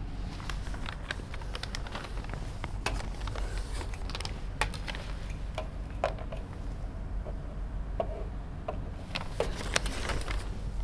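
Marker and long ruler working against a whiteboard: scattered light clicks, taps and short squeaks of the marker being pressed to the board and the ruler set against it. A low steady hum runs underneath.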